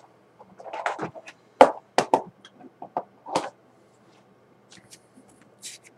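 Scattered short knocks, clicks and rustles of things being handled: about half a dozen brief sounds with quiet gaps between them, and a short hiss near the end.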